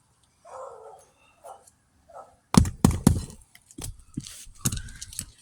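Roofing work on brittle old shingles: faint scraping at first, then a run of sharp knocks and thunks from about halfway in.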